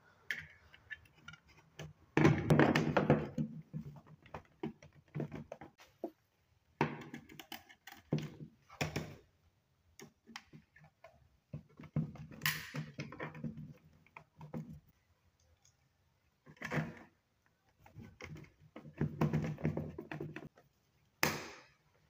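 Irregular plastic clicks, knocks and scraping from a twin switched socket faceplate being pushed onto its surface-mounted plastic back box and screwed down, with short pauses between bursts.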